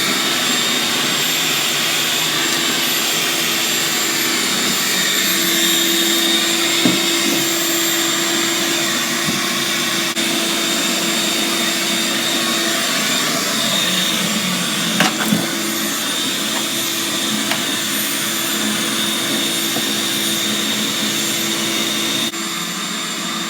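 A small motor running steadily, a hum over a rush of air, with a couple of brief knocks.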